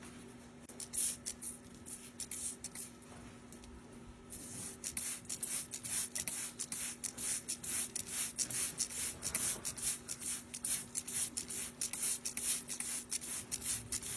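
Hoof knife paring away detached sole horn from a cow's hoof in short scraping strokes, a few at first, then steady at about three or four a second from about four seconds in.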